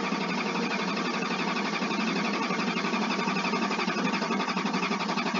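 Starter cranking the 1994 Chevy Blazer's 6.5-litre diesel V8, a steady rhythmic churning that goes on without the engine catching: a no-start.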